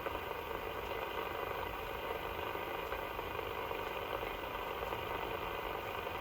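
CB radio receiver hissing with steady band static on an open channel between transmissions, while it waits for a weak long-distance station to come back.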